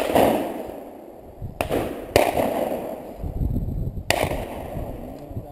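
Shotgun shots: four reports in about four seconds, at the start, twice more around a second and a half to two seconds in, and again about four seconds in, each with a trailing echo. The first is the loudest.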